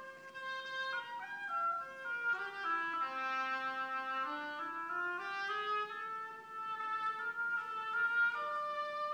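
A small group of wind players from a concert band playing a slow melody in several parts. Sustained notes move stepwise, with the lowest part sinking in the middle and then climbing back up.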